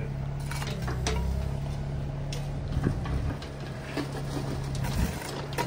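An engine running steadily at low revs, with scattered knocks and scrapes over it.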